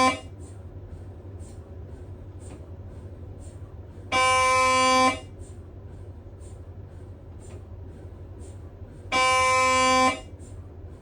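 Siemens Magnetom Spectra MRI scanner's gradient coils buzzing during a scan sequence. Loud steady buzzing tones of about one second each repeat about every five seconds: one cuts off at the very start, then two more about four and nine seconds in. Between them come faint ticks about twice a second over a low steady hum.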